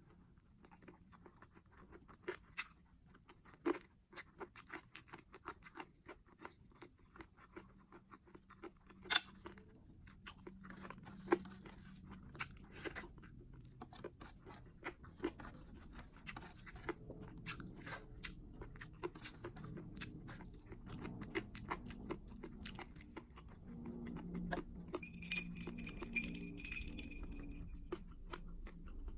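Close-miked chewing and crunching of food, with many sharp crackling bites and mouth smacks that grow denser and fuller toward the end.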